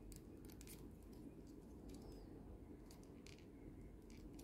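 Faint clicks of a small plastic Transformers figure's joints and parts being moved and snapped while it is folded into motorcycle mode, several close together in the first second and a few more scattered later, over a low room hum.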